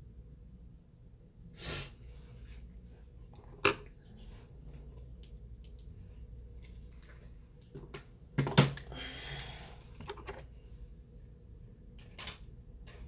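Makeup products being handled on a table: a few scattered clicks and clacks of containers and brushes, the loudest about eight and a half seconds in, with a brief rustle just after it.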